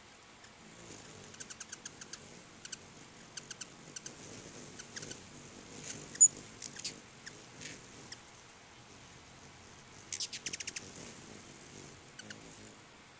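Ruby-throated hummingbirds chipping and squeaking in short, fast runs, the high sharp notes of birds chasing each other around the feeders. A denser burst of rapid chattering comes about ten seconds in, and one single chip just after six seconds is the loudest sound.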